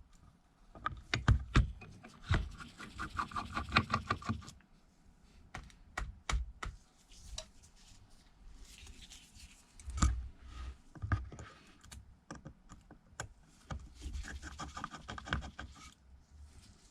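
Small hand tools clicking and tapping against an opened iPad Air's internal parts: light, irregular clicks and taps, with a quick run of clicks about two to four seconds in.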